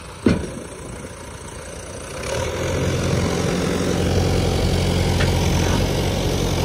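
JCB 3DX backhoe loader's diesel engine running, picking up revs about two seconds in and then holding steadily under load as the backhoe arm works. A single sharp knock just after the start is the loudest moment.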